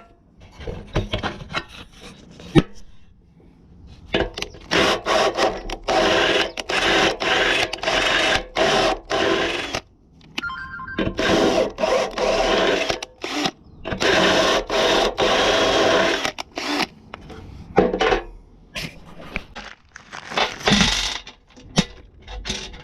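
Handheld power tool run in short repeated trigger bursts over two long stretches, with metal clinks and knocks between them.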